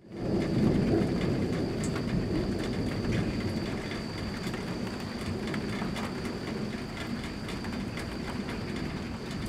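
Thunder rumbling low, loudest in the first second or two and then rolling on steadily, with rain pattering throughout.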